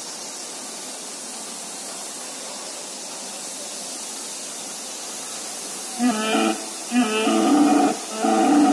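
Steady hiss, then from about six seconds in the animatronic Triceratops's roar sound effect: three low, drawn-out calls, a short one followed by two longer ones, the last still going at the end.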